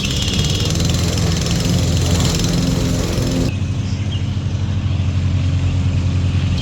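Gas engine of a Toro self-propelled push lawnmower running steadily. About halfway through, the high hiss drops out abruptly while the engine note carries on.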